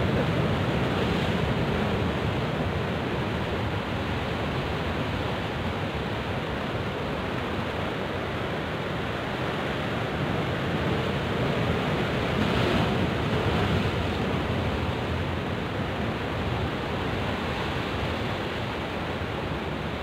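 Sea surf breaking and washing against shore rocks, a steady rushing noise that swells a little louder about a second in and again around twelve to fourteen seconds in.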